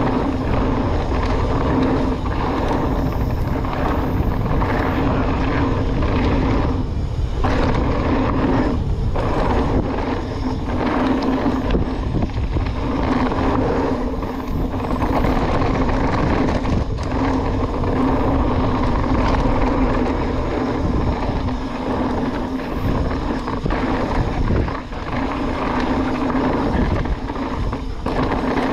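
Mountain bike ridden down a dirt jump trail: continuous rolling noise of the tyres on dirt with a steady whirr and rattle from the bike, dipping briefly a few times.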